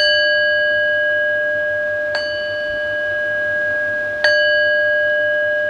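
Metal singing bowl struck three times, about two seconds apart, each strike leaving a long, steady ringing made of several tones. The second strike is lighter than the other two.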